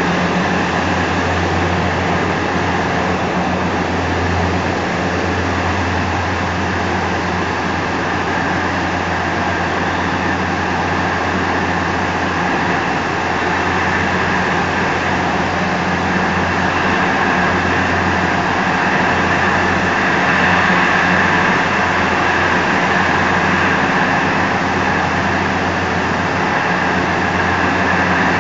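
Flour mill plant machinery running: chakki stone mills, a sifter and their electric motors give a steady, loud hum with an even rushing noise over it.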